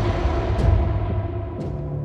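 Cinematic logo intro sting: a deep, booming hit dying away as a low rumble, with faint swishes about half a second and a second and a half in.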